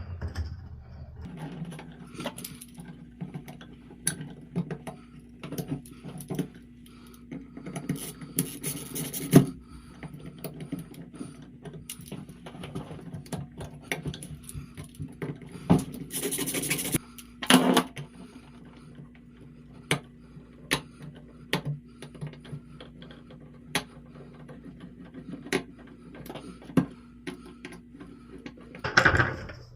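Scattered small metallic clicks, taps and scrapes as a replacement light switch is pushed into its wall box and its mounting screws are driven in with a screwdriver, with two brief scraping bursts, one about nine seconds in and one near the middle.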